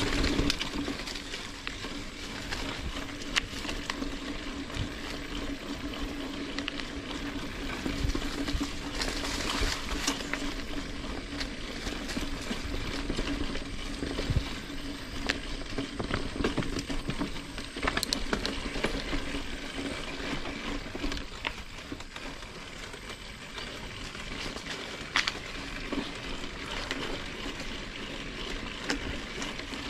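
Mountain bike rolling over a dirt and dry-leaf trail: continuous tyre crackle and rustle, with sharp clicks and rattles from the bike as it goes over bumps.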